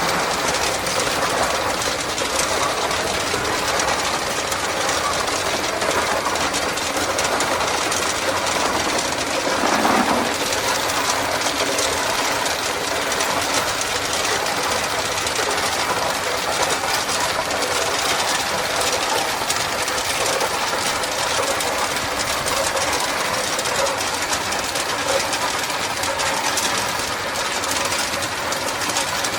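Tube ice machine running during ice harvest: its piston Bitzer compressor runs steadily under a dense, continuous rattling clatter as ice tubes drop out of the machine. A brief swell in the noise about ten seconds in.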